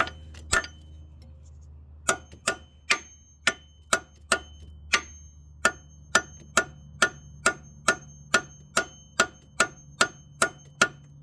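Claw hammer striking a steel freeze plug in the cast-iron block of a Jeep 4.0 straight-six, knocking it loose. Two blows, a pause of about a second and a half, then a steady run of blows about two to three a second, each with a short metallic ring. Some blows glance off the block. The plug is moving ever so slightly.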